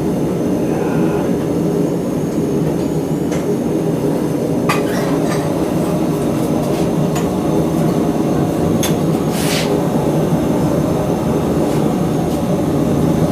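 A blacksmith's forge running with a steady, even rushing noise while the iron heats. A few light clicks or knocks of metal are heard over it, about 3, 5 and 9.5 seconds in.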